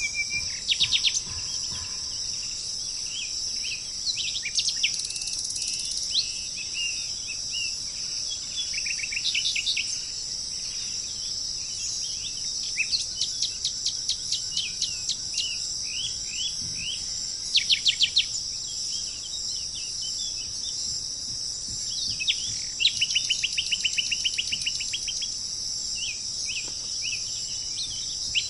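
Wild birds calling with short chirps and several fast trills of repeated notes, over a steady high-pitched drone of insects.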